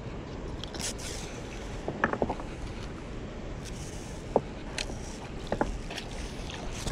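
A hand-held catfish out of the water giving a few short creaking squeaks, a cluster about two seconds in and single ones near four and a half and five and a half seconds, over a steady rushing background.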